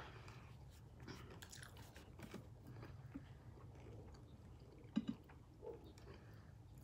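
Faint chewing of a mouthful of shrimp tostada, with small crunches and mouth clicks and a brief louder mouth noise about five seconds in.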